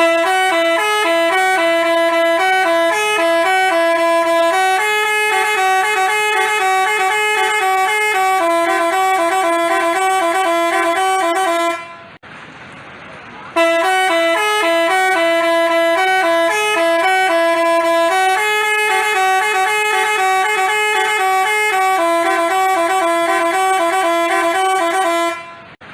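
Basuri telolet musical horn playing a tune of loud, stepped multi-tone notes. The same phrase plays twice, with a pause of about a second and a half in the middle.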